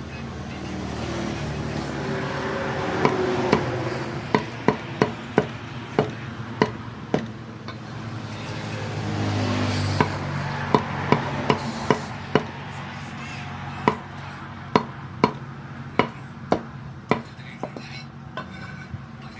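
Knife or cleaver chopping on a cutting board: sharp strokes about two a second, coming in runs with short pauses. A low hum in the background swells twice.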